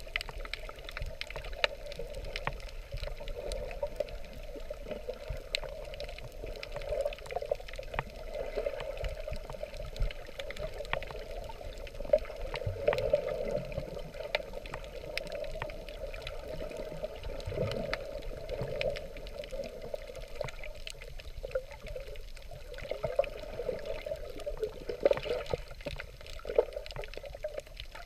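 Underwater sound as heard by a submerged camera: a steady, muffled rush of water with scattered sharp clicks throughout.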